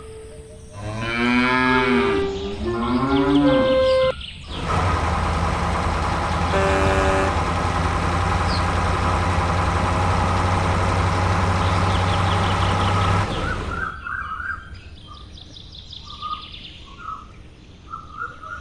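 Cattle mooing: two long, bending calls in the first few seconds. They are followed by a loud, steady noisy sound lasting about nine seconds, then faint short chirps near the end.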